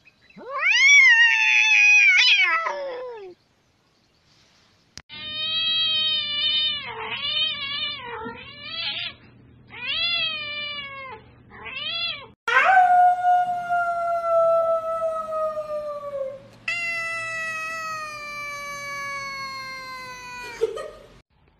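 Domestic cats meowing and yowling in several short clips. First comes one loud yowl that rises and then falls in pitch, then a run of short meows over a low hum, then two long drawn-out meows, each sliding slowly down in pitch.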